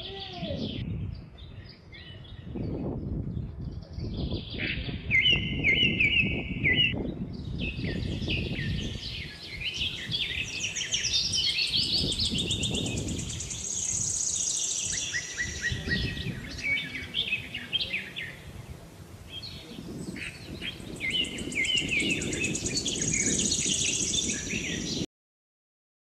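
Several songbirds chirping and singing, with repeated trilling phrases and high thin notes, over a low rumble. The sound cuts off suddenly near the end.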